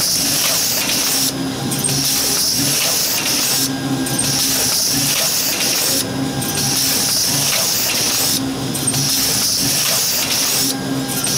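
Stamping press line running in a steady cycle: a hiss that breaks off briefly about every two and a half seconds, over a low hum that pulses in the same rhythm.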